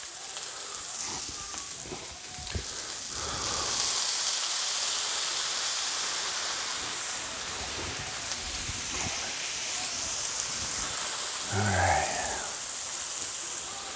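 Shrimp and vegetables sizzling on a hot Blackstone flat-top griddle, with water poured on the peas hissing into steam. The hiss swells about three seconds in and then holds steady.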